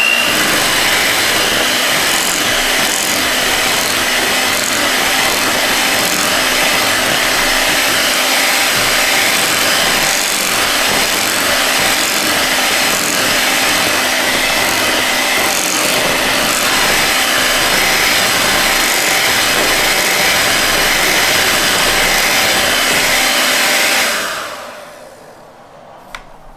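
Electric hand mixer running steadily, its beaters working thick chocolate cheesecake batter in a glass bowl. The motor is switched off about 24 seconds in and winds down.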